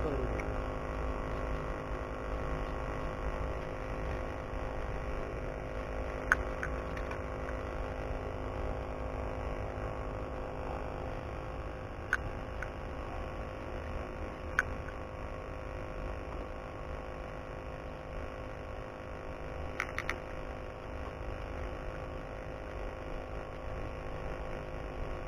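Steady low hum with a few faint steady tones, broken by four isolated sharp clicks, the last a quick double, as a fishing rod and line are handled.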